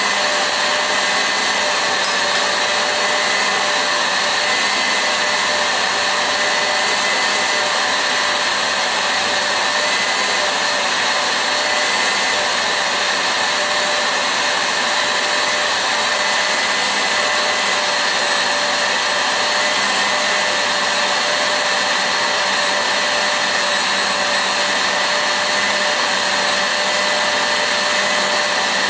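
KitchenAid Artisan tilt-head stand mixer running steadily, its wire whisk beating eggs and sugar in the steel bowl toward a pale foam. A constant whir with a steady whine, unchanging throughout.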